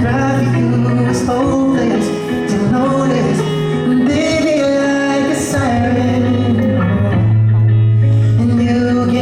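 Music with a man singing over a backing track with long held bass notes.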